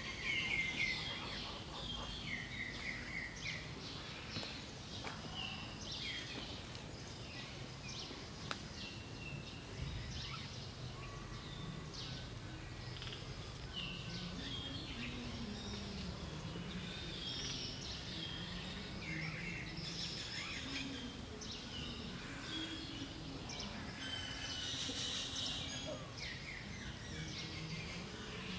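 Several wild birds chirping and calling over steady outdoor background noise, with a quick run of repeated chirps near the start.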